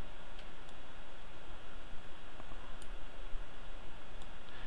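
A few faint computer mouse clicks over a steady hiss of microphone and room noise.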